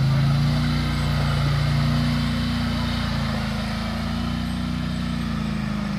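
ATV (quad bike) engine running under load as it climbs a muddy dirt track, its note fairly steady and slowly fading as it pulls away.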